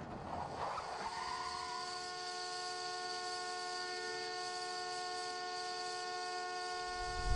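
A car horn sounding one long, unbroken, steady blare, starting about a second in, as from a crashed car with its horn held on.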